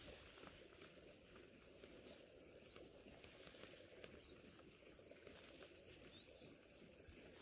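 Near silence: faint open-air ambience with a steady, high-pitched insect hum.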